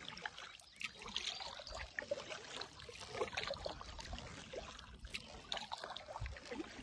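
Water trickling and dripping with small splashes as kayaks are paddled: an irregular patter from the paddle strokes and water moving around the hull.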